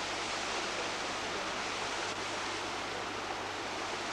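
Rocky stream rushing over boulders in small cascades, a steady even rush of water.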